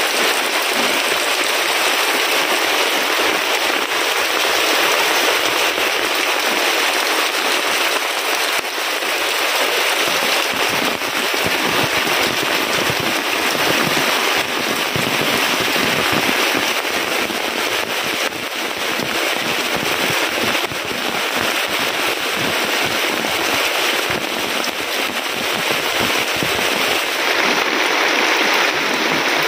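Heavy rain pouring steadily, a dense patter of countless drops striking leaves, a thatched roof and puddled ground, with water running off the roof edge.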